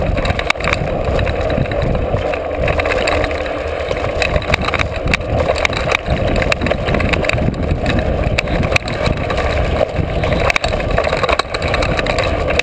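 Mountain bike ridden fast over a rough dirt trail, heard from a camera riding along: a steady rush of wind and tyre rumble, with frequent sharp rattles and knocks from the bike over bumps.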